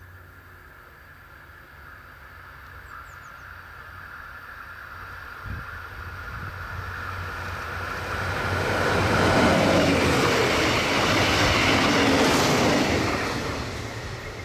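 DB class 628 diesel multiple unit approaching and passing, its diesel engine and wheels on the rails growing steadily louder, at their loudest about two-thirds of the way in, then falling away near the end as it goes by.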